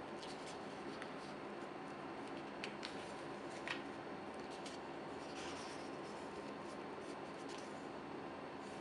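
Glossy pages of a large photobook being turned by hand: soft paper rustles and a few light flicks, over a steady faint hum.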